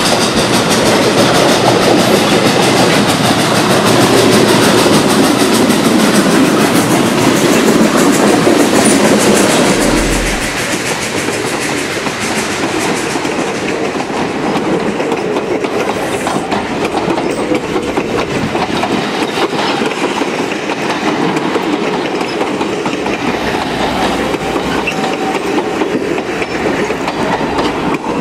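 Steam-hauled passenger train running by. A steam locomotive comes on at the head of its train; after a drop in level about ten seconds in, the passenger cars roll past close up with a steady clickety-clack of wheels over the rail joints.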